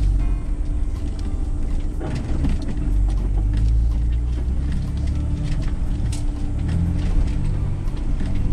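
Ford Bronco crawling a rocky dirt trail, heard from inside the cab: a low engine rumble that swells a few times, with frequent knocks and rattles from the tyres and body over the rocks.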